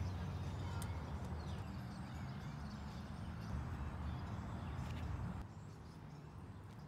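Outdoor ambience: a low steady rumble with faint bird chirps over it, dropping quieter about five seconds in.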